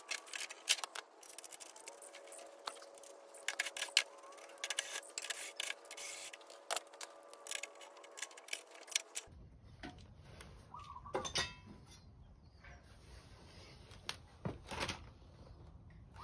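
Light metallic clicks and taps as the steel blades on a Craftsman T8100 mower deck are turned and handled by hand. About nine seconds in, this gives way to a faint outdoor background with a couple of short chirps.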